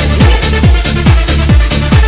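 Electronic dance music with a steady, heavy kick drum on every beat, a little over two beats a second.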